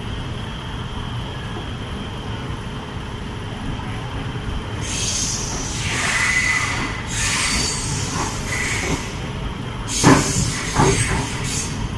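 Passenger train pulling away from a station and gathering speed: a steady rumble of wheels on rail, with squealing and hissing from the wheels from about five seconds in, and a few sharp clacks near the end.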